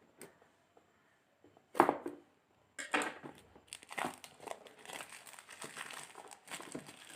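Packaging on a smartphone retail box being torn and crinkled open. There is one sharp rip a little under two seconds in, then continuous crackling and crinkling.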